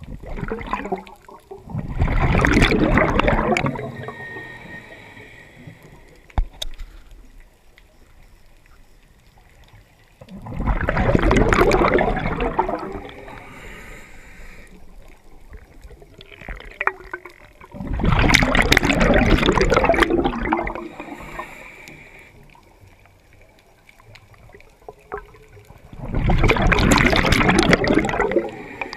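Scuba diver's exhaled bubbles rushing out of the regulator underwater: four gurgling bursts, each about two to three seconds long, coming about eight seconds apart with each breath.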